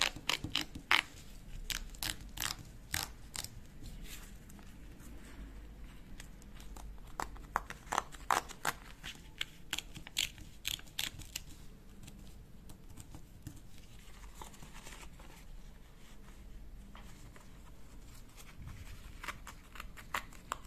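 Perforated edge strips being torn off a folded paper Google AdSense PIN mailer: a run of short, crisp ticks as the perforations give way one by one. The ticks come in quick runs with pauses and grow fainter and sparser in the second half.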